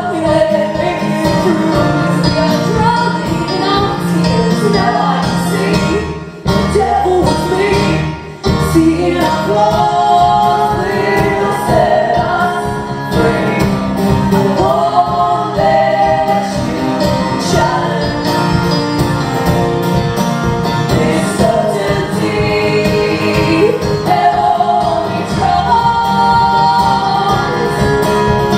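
Live band music: a song sung by female voices over instrumental accompaniment, with two short breaks in the sound about six and eight seconds in.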